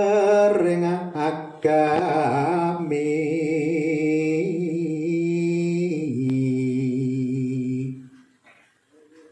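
Man singing tembang macapat, Javanese sung poetry, solo without accompaniment: long held notes with wavering ornaments, stepping down to a lower held note about six seconds in, then a pause for breath shortly before the end.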